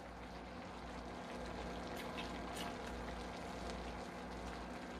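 Bulgogi-mushroom hot pot broth simmering: a faint, steady bubbling hiss with a few soft ticks.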